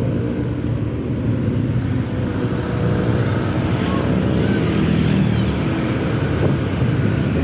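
Diesel bus engine running steadily with a low rumble, with a few faint short high chirps about halfway through.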